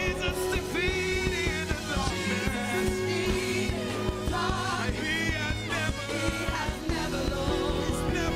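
Worship band playing a contemporary worship song: several voices singing together with long held notes over guitar, bass and drums.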